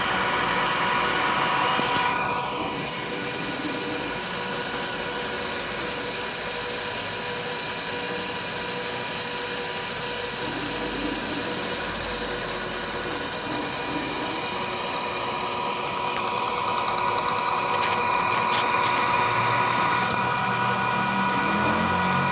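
Metal lathe running while it turns a pipe down into a bushing sleeve: a steady machine whine with a cutting hiss. A short falling tone comes about two seconds in, and the sound cuts off suddenly at the end.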